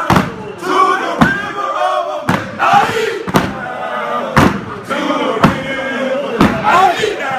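A line of fraternity brothers chanting and shouting together during an Omega Psi Phi hop, with a hard stomp on the floor about once a second.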